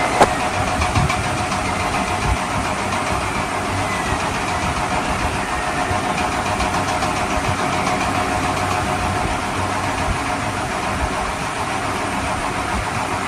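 An engine-like motor running steadily, an unbroken hum with a few steady tones, starting and stopping abruptly.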